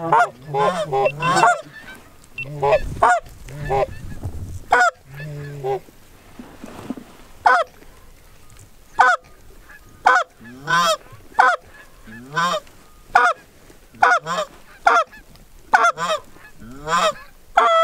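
Canada geese honking: a run of short, sharp honks and clucks, roughly one or two a second.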